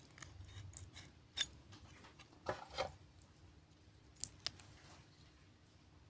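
Metal link bracelet and clasp of a Fossil automatic watch being handled, giving a handful of short, sharp clicks and clinks spaced irregularly over a few seconds.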